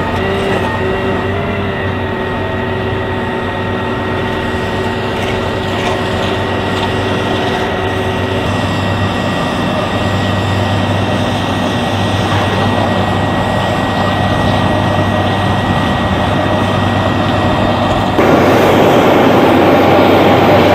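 Jet engine running steadily with a few held whining tones, slowly growing louder, then stepping up suddenly near the end.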